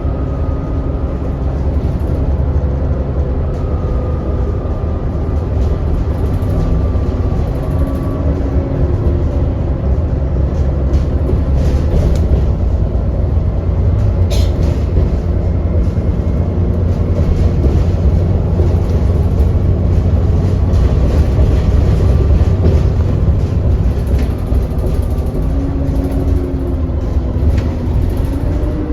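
ADL Enviro400 double-decker bus heard from inside while under way: a steady low engine rumble with whining drivetrain tones that rise and fall as the bus speeds up and slows. Its cooling fan gives a vacuum-cleaner-like drone, the 'hoover' sound. A single sharp click comes about halfway through.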